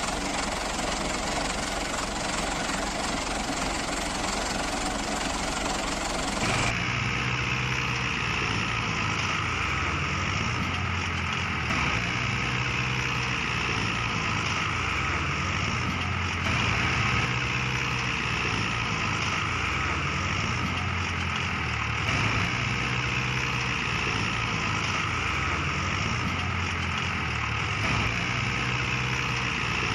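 Mini tractor engine running steadily. About six seconds in, the sound changes abruptly to a steadier engine hum with a higher hiss over it.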